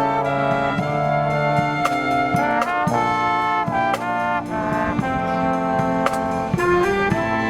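Brass marching band playing, with trumpets and trombones carrying a melody over held chords, punctuated by drum strikes.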